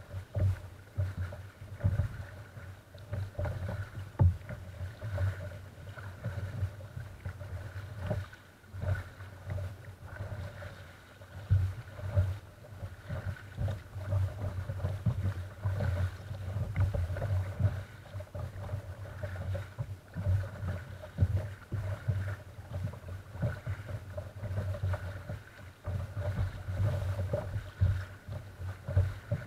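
Choppy sea water slapping and splashing against the bow of a moving kayak, heard close up from the bow, in an irregular run of low knocks with a few louder hits.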